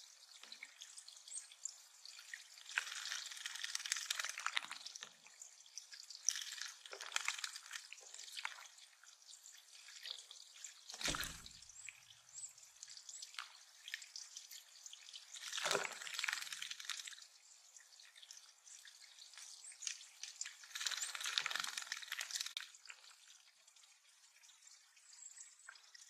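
Small songbirds bathing in a shallow stone-bottomed pond, splashing in five separate bursts of wing-fluttering a few seconds apart. A steady drip and trickle of water runs underneath. One splash about eleven seconds in carries a low thump.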